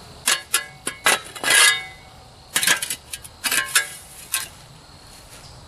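Metal shovel blade digging and scraping at the base of a cast-iron pot-belly stove, giving a string of sharp metallic clinks with a short ring. They come in clusters over the first four seconds or so, then stop.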